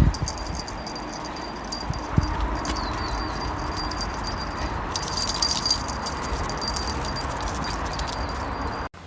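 A small dog's collar tags jingling as it moves, loudest about five seconds in, over a steady outdoor hiss with scattered light clicks.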